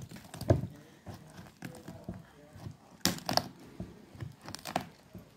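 A skinned hare carcass being handled on a wooden cutting board: irregular knocks against the board and rustling, with a heavier knock about half a second in and sharper clusters about three seconds in and again near the end.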